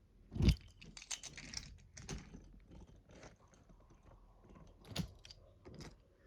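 Irregular light clicks and knocks of small hard objects being handled, the loudest about half a second in and another near five seconds in.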